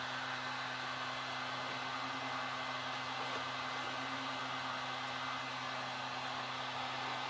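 Hot-air heat gun running steadily, its fan blowing with a low, even hum.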